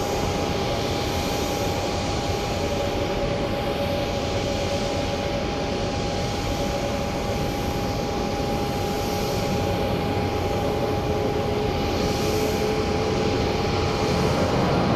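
Boeing 767-200 freighter's twin jet engines at takeoff power during its takeoff roll: a steady jet rumble with a constant high whine, growing slightly louder near the end.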